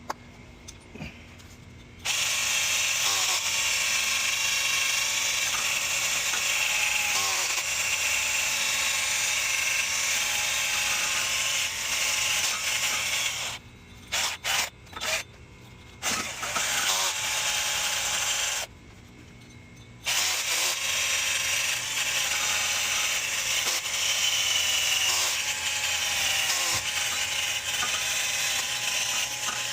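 Power tool running in long stretches to clean rust off a car's wheel hub after the brake rotor has been removed. It stops briefly a few times, twice for about two seconds.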